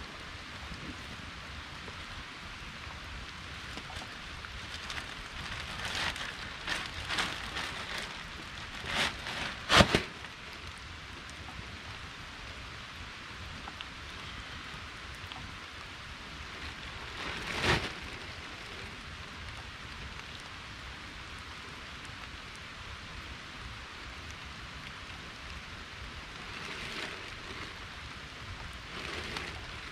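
Steady hiss of rain falling, with a few short knocks in the first third and one more just past halfway.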